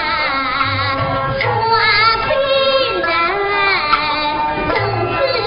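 Huai opera aria: a performer sings a wavering, gliding vocal line over the opera band's instrumental accompaniment.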